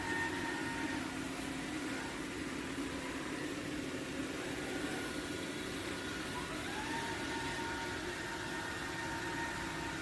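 Dreame robot vacuum running: a steady hum of its suction fan and brush motor with thin whining tones, one of which rises in pitch about two thirds of the way through as a motor speeds up.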